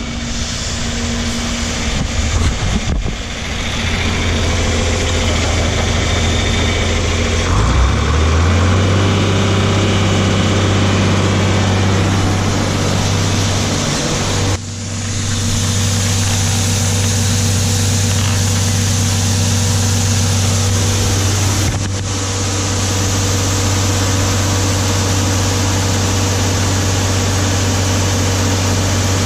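An engine running steadily. About eight seconds in it settles into a firmer, slightly higher hum. It breaks off briefly twice, about halfway through and about three-quarters of the way through.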